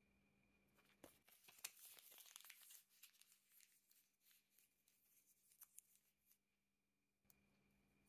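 A scrap of paper being crumpled by hand into a small ball: dense crackling and crinkling, busiest in the first couple of seconds, then thinning to scattered crackles that stop about six seconds in.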